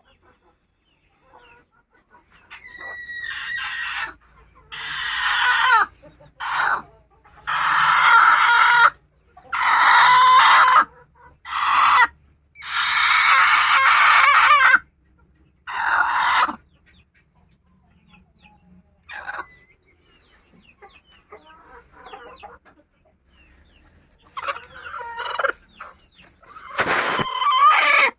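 Local chickens: roosters crowing over and over, several loud crows one after another in the first half and another near the end, with hens clucking in the quieter stretch between.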